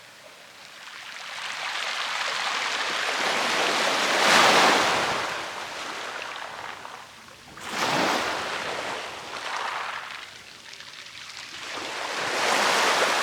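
Sea waves breaking on the shore: a rushing hiss that swells and falls back three times, the loudest surge about four seconds in.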